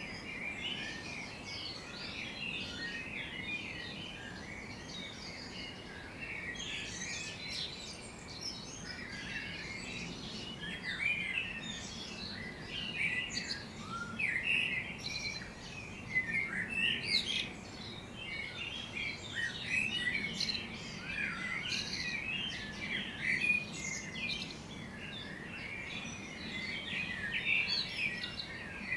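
Many songbirds chirping and singing at once in a morning chorus, overlapping short high chirps and trills, busier from about a quarter of the way in, over a faint low background hum.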